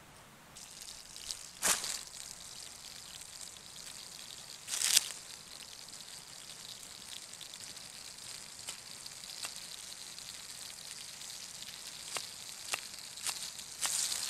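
Burgers frying in a pan over a fire, a steady high sizzle, under the knocks and clicks of a knife cutting mushrooms and onion on a wooden board. There are two louder knocks in the first five seconds and a run of quick sharp cuts near the end.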